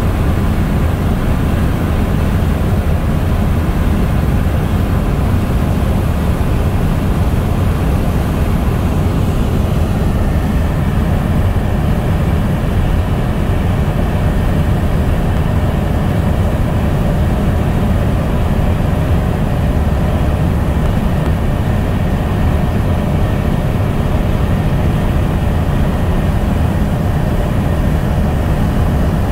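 Steady road and engine noise inside a car's cabin while cruising at highway speed: a constant low rumble with tyre hiss and no change in pace.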